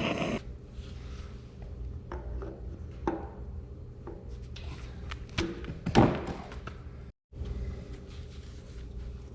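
Scattered metal clunks and knocks of parts and tools being handled while fitting a pulley onto an engine's crankshaft, over a low steady hum, with the loudest knock about six seconds in. A hiss cuts off just after the start.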